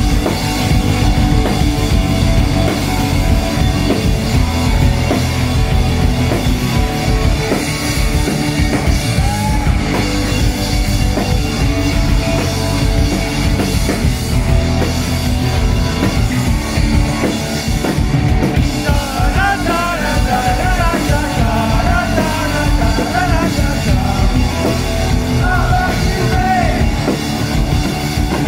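Live rock band playing loudly: electric guitar, bass guitar and a drum kit, with a sung vocal line coming in about two-thirds of the way through.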